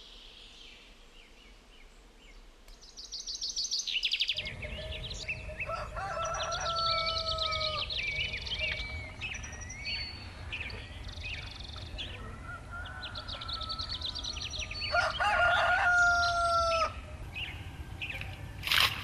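A rooster crowing twice, each crow a long held call that falls away at the end, over small songbirds chirping busily and a steady low rumble. A sharp knock near the end.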